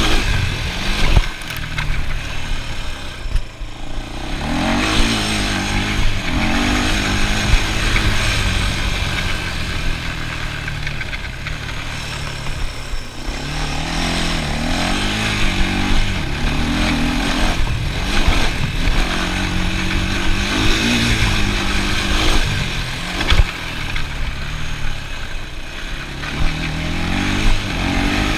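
ATV engine running as it is ridden, its pitch rising and falling repeatedly with the throttle, with a few sharp knocks along the way.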